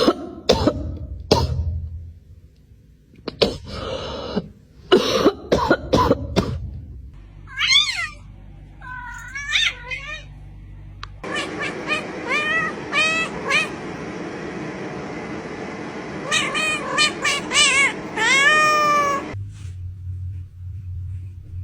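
Cats meowing, a string of short calls that rise and fall in pitch, coming in groups through the middle and later part. Before them come several short, sharp sounds.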